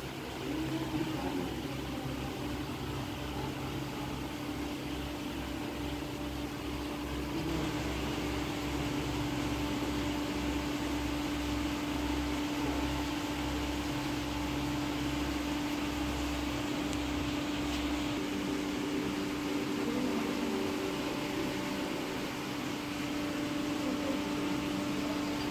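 Steady mechanical hum with one constant pitched tone, over a low pulsing that fades out about two-thirds of the way through.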